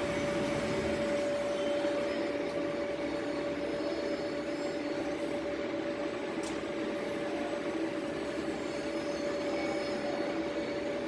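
Yenar YF 60210 roll fluting machine running: a steady hum with a constant mid-pitched whine.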